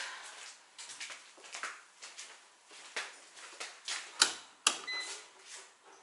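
A run of small clicks and rustles, with two sharp, loud clicks about half a second apart a little after four seconds in, followed by a brief high beep.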